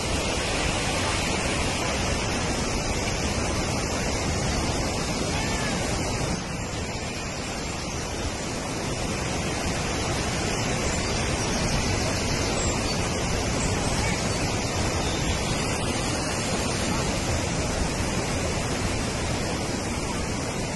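Steady rush of rain-swollen floodwater running down a wadi and spilling over a low rocky fall. The level drops slightly about six seconds in, then holds steady.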